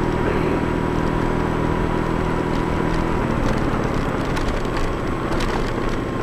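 Scooter riding along a paved road. Its steady motor note drops away about three seconds in as it slows for a junction, leaving a crackling, rattling ride noise.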